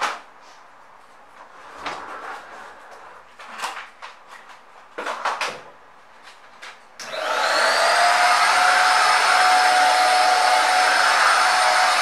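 A few light knocks and clatters, then about seven seconds in a Philco Rapid 1300 (PAS1300C, 1300 W) stick vacuum cleaner switches on. Its motor spins up within a second into a loud, steady whine with a rush of air.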